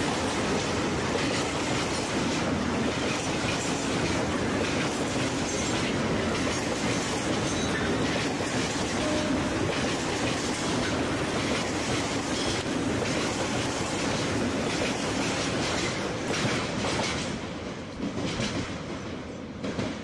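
Covered freight wagons of a passing train rolling by close, wheels clattering rhythmically on the rails. About seventeen seconds in, the clatter drops away as the end of the train passes and moves off.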